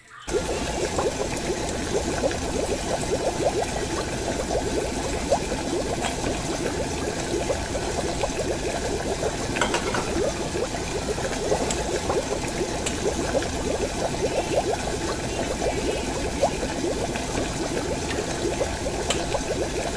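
Pot of chicken broth boiling, a dense steady bubbling and popping that cuts in suddenly. A few light clicks sound in the middle.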